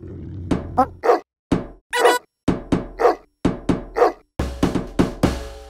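Cartoon sound effects: a steady run of thuds, about two a second, with a short squeaky yelp roughly once a second between them.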